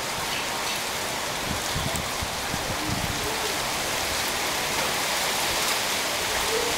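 Steady, even rushing hiss of outdoor background noise, with a few faint low thuds.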